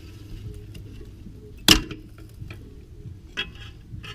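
Plastic ABS sensor connector on a car's rear wheel hub being pried off: one sharp snap about one and a half seconds in as the connector's clip breaks, then a couple of lighter clicks.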